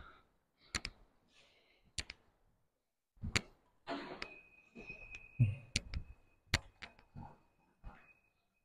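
Footsteps on a bare tiled floor in an empty room: irregular sharp taps and knocks about a second apart, a few with a dull thud. A faint steady high-pitched tone sounds from about four seconds in.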